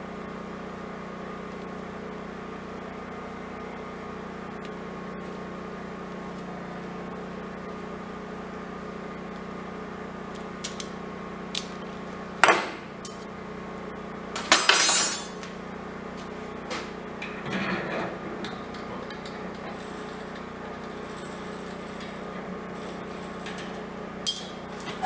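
Metal parts clinking and knocking now and then, loudest in a cluster about halfway through, over a steady low hum.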